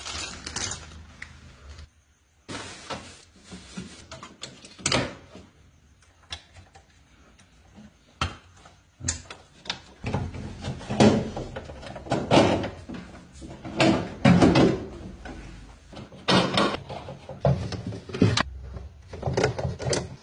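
Irregular knocks, clicks and clatter of hard parts being handled. It goes quiet briefly about two seconds in, and the knocks come thicker and louder from about ten seconds on.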